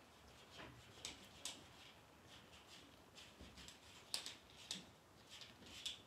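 Faint, irregular small clicks and ticks, about a dozen scattered through, over quiet room tone.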